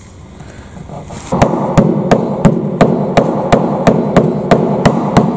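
A sander starts working over a cured fibreglass deck about a second in, knocking down ridges in the peel-ply texture. It makes a steady scrubbing noise with a sharp knock about three times a second.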